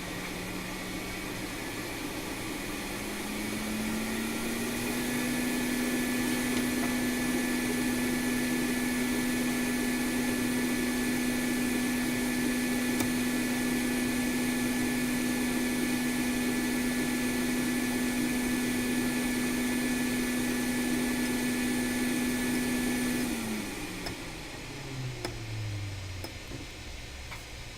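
Hot air rework station's blower running: a steady hum that climbs in pitch over the first few seconds, holds, then winds down in a falling drone about 23 seconds in. A faint high whine runs alongside the hum while it holds.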